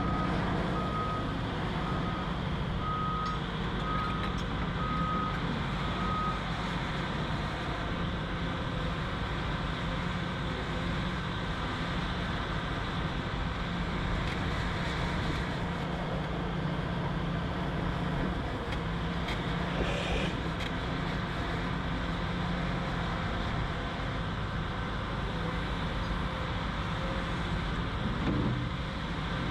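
Heavy construction machine's engine running steadily, with a reversing alarm sounding six beeps about a second apart in the first six seconds. There is a brief knock about twenty seconds in.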